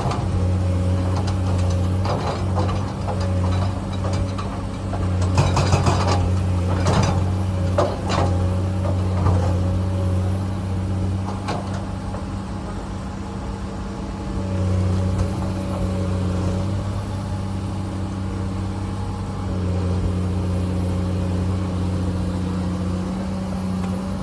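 Komatsu excavator's diesel engine running steadily, its pitch holding while its level steps up and down with the hydraulic load. Several sharp clanks of bucket and rock come about five to eight seconds in.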